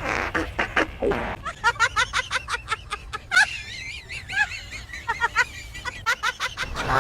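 Someone laughing: a breathy burst of laughter, then a long run of rapid, high-pitched giggles.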